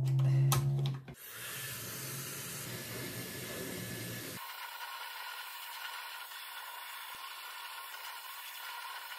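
Handheld hair dryer blowing on wet hair: a low hum in the first second, then a steady, even rushing hiss of air.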